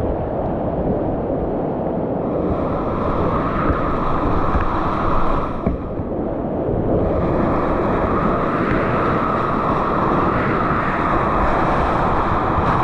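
Whitewater rapids rushing and splashing close around a kayak, heard from a camera on the boat. The rush dulls briefly about six seconds in, then comes back fuller.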